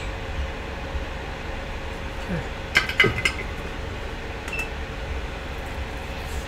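A quick cluster of three or four metallic clinks of small bench tools about three seconds in, over a steady low rumble.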